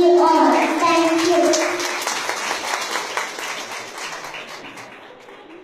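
A young child sings the last line of a song into a microphone, the final note ending about two seconds in. Audience applause follows and fades away.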